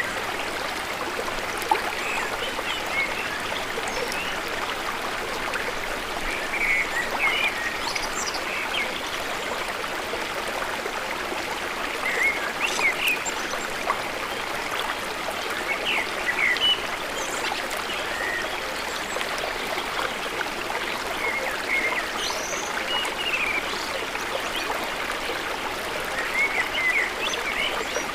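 Water from a small stream or spring running steadily, with birds chirping over it in short scattered calls that gather into brief busier bursts a few times.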